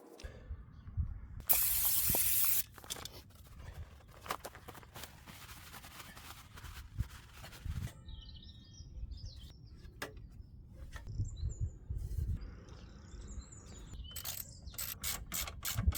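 A loud hiss of spray lasting about a second, starting about one and a half seconds in, among scattered clicks and knocks of handling. Birds chirp through the second half.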